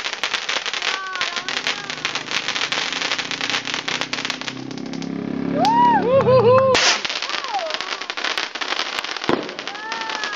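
Ground fireworks crackling: a dense, rapid patter of small pops from spark-throwing fountains. The crackle eases off a little before the middle, then comes back. Around the middle, voices call out with short rising-and-falling cries; this is the loudest stretch, and it breaks off abruptly.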